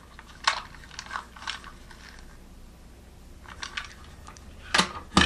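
Small plastic toys and packaging being handled on a table: a scattering of short clicks, taps and crinkles, the two loudest near the end.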